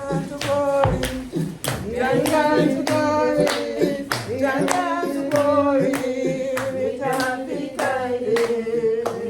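Voices singing a song together with steady hand-clapping on the beat, about two claps a second.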